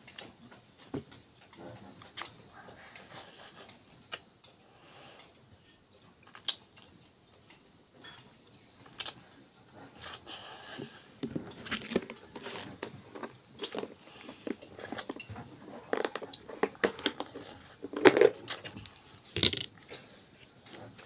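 A child slurping and chewing instant ramen noodles close to the microphone, with short clicks now and then from a steel fork and spoon against a steel plate. The eating sounds come irregularly, sparse at first and busier and louder in the second half.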